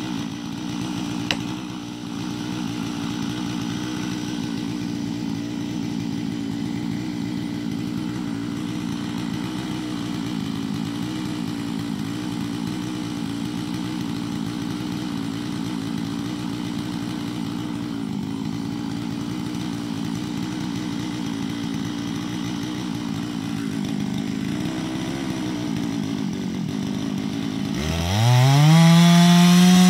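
Stihl MS-660 two-stroke chainsaw idling steadily, with one sharp knock about a second in. Near the end the throttle opens and the saw revs up quickly to full speed, its pitch rising steeply and then dipping slightly.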